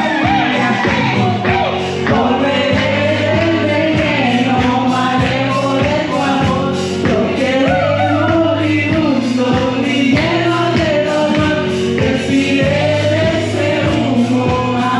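Karaoke: a man and a woman singing into handheld microphones over a backing track played through a PA, with a steady beat.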